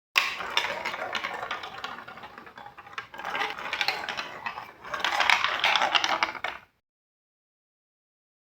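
Marbles rolling and clattering along a run of plastic Lego Duplo blocks: a dense rattle of small clicks that swells three times, then stops abruptly a couple of seconds before the end.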